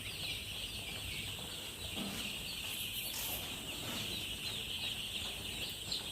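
A flock of five-day-old chicks peeping together, a dense, unbroken chorus of many overlapping high chirps.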